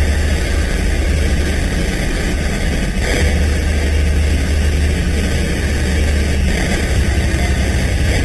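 Loud, harsh, heavily distorted digital noise with a steady low drone underneath, a sound effect pushed through extreme bit-level distortion until the original sound is no longer recognisable. It brightens briefly about three seconds in.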